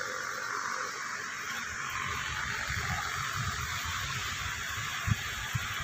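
Steady hiss of heavy rain falling. Low rumbling joins in about two seconds in, and there are a couple of dull thumps near the end.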